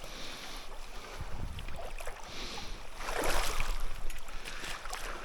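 Water sloshing and splashing in a shallow river, in uneven surges, loudest about three seconds in.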